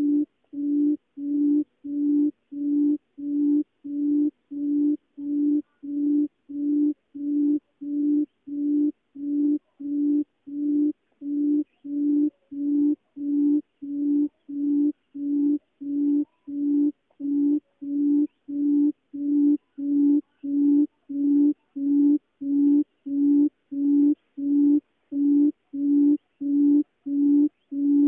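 Barred buttonquail calling: a long, steady series of low hoots, evenly spaced at about three every two seconds.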